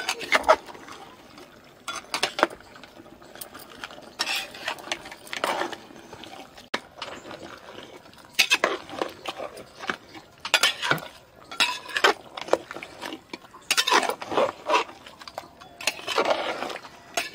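Metal ladle scraping and clinking against the inside of an aluminium pressure cooker as raw mutton is stirred with spices and salt, in irregular bursts of strokes.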